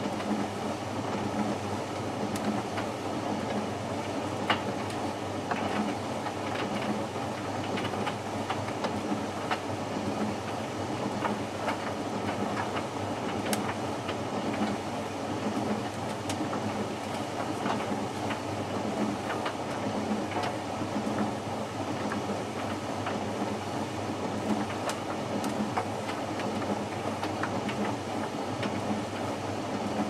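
Hoover VisionHD condenser tumble dryer (VHC 681B) running a bone-dry sensor cycle. Its motor and fan give a steady hum with a regular throb from the turning drum, and scattered light clicks come from the tumbling load.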